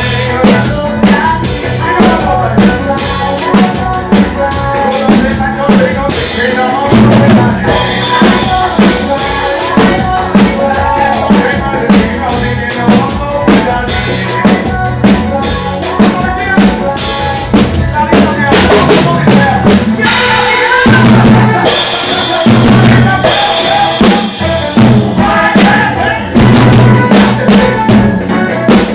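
Forró band music played live, driven by a drum kit: a steady beat of kick drum, snare and rimshots under sustained melodic instruments.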